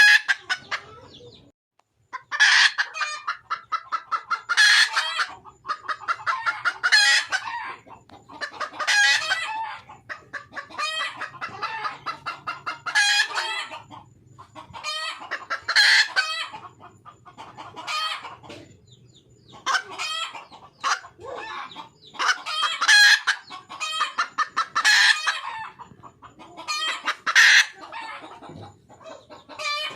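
Red junglefowl hen calling to attract a male: bouts of rapid clucking, each rising to a louder note, repeated about every two seconds.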